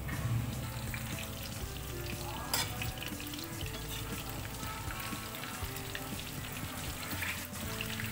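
Battered chicken pakoras deep-frying in hot oil in a wok, a steady sizzle and crackle, while a slotted metal spatula stirs them. There is one sharp click about two and a half seconds in.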